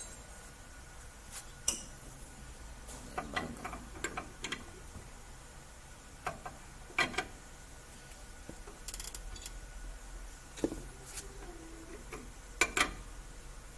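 Scattered light metallic clicks and clinks as a new ball joint is handled and fitted into the lower control arm of an Isuzu 4HF1 truck's front suspension, with a couple of sharper clinks near the end.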